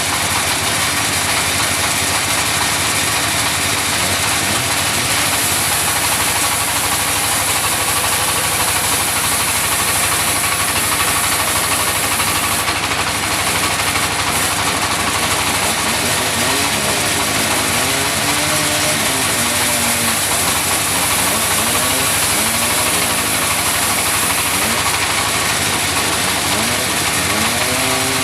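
A sawmill's engine-driven saw running steadily, loud and continuous. Wavering tones rise and fall through the second half.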